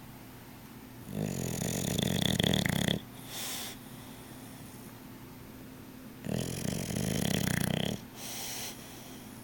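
A sleeping bulldog snoring: two long snores with a whistly edge, about five seconds apart, each followed by a short, softer breath.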